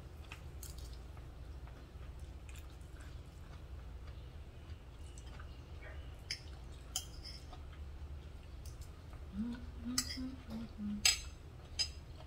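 Metal spoon clinking and scraping against a ceramic bowl while eating, in scattered sharp clinks, the loudest about ten and eleven seconds in. A short closed-mouth hum is heard near the end, over a steady low room hum.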